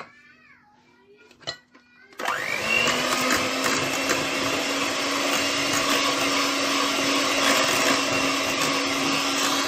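Electric mixer switched on about two seconds in, winding up quickly and then running steadily at speed as it beats a cream-cheese, cream and chocolate-pudding filling.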